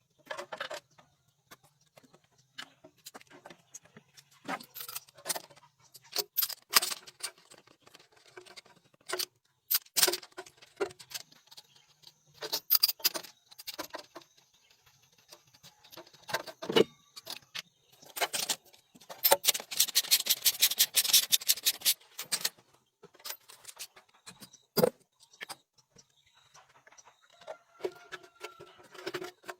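Metal tools and parts clinking and knocking as they are handled during car repair work, with a rapid run of even clicks lasting about three seconds past the middle.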